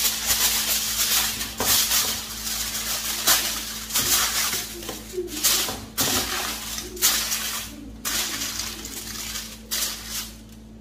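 Aluminium foil crinkling and rustling in irregular bursts as a sheet is spread over a baking dish and pressed down around its rim.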